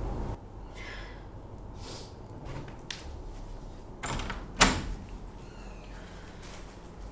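Wooden panelled door being opened: the handle turns and the latch gives one sharp click a little past halfway, the loudest sound here.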